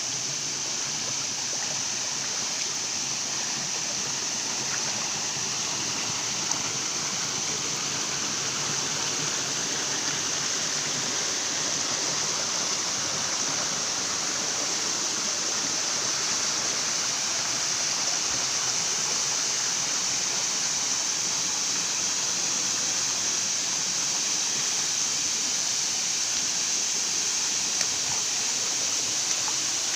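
Waterfall: falling water rushing in a steady, unchanging hiss.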